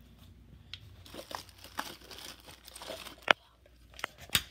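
Rustling and crinkling handling noise close to the microphone, broken by scattered small clicks and knocks, with two sharper clicks near the end, as things are moved about while the phone is carried.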